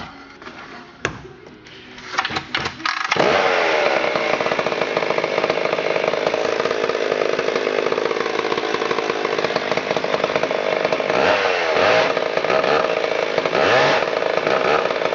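A 1976 McCulloch Super Pro 70 chainsaw, a 4.3 cubic inch two-stroke, starting up: a few sharp clicks and knocks, then the engine catches about three seconds in and runs loudly, its revs dipping and rising a few times in the second half.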